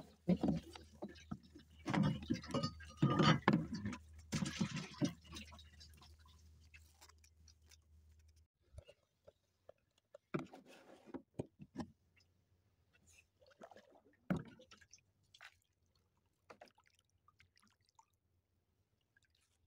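Snakehead fish being taken from a trap and handled in a small boat: a few seconds of wet knocking and splashing, then only scattered light knocks and taps.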